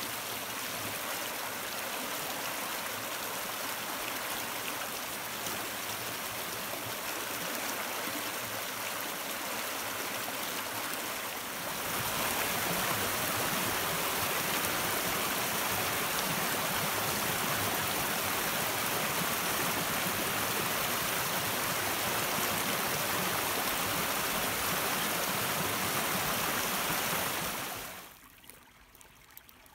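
A shallow stream running over stones, a steady rushing and babbling of water. It gets louder about twelve seconds in, at a faster stretch of rapids, then drops near the end to a faint trickle through grass.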